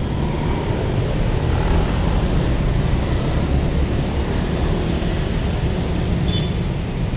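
Road traffic of motor scooters and cars passing close by: a steady engine rumble, with a brief click near the end.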